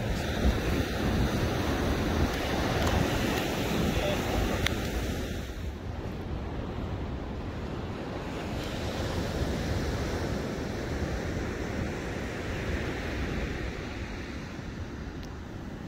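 Surf washing up the beach with wind buffeting the microphone, a steady rushing noise whose hiss eases about six seconds in.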